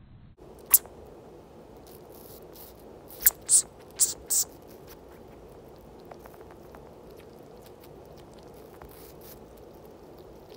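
Sugar gliders chewing apple close to the microphone: faint, soft clicking and crunching, with one sharp click under a second in and four more in quick succession around three to four seconds in.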